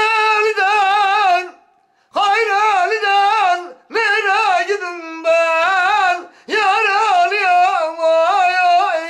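A man singing a Turkish folk song unaccompanied, in long held, heavily ornamented notes with a wavering trill. The notes come in several phrases with short breaks for breath between them.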